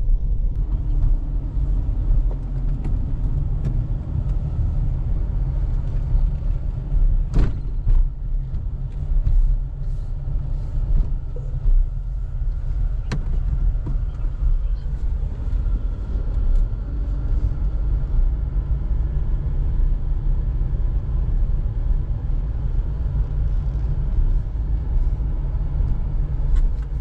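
Steady low rumble of a vehicle's engine and road noise, heard from inside the cabin while driving, with a couple of faint clicks.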